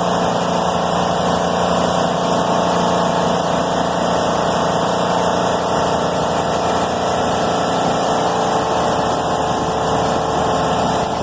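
HVAC unit running: a loud, steady mechanical hum with a constant low tone, unchanging throughout.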